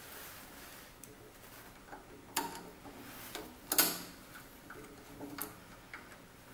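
Hand screwdriver setting and turning the screw that mounts a digital readout on a thickness planer: a few light clicks and taps, the sharpest at about two and a half and four seconds in, with smaller ticks after.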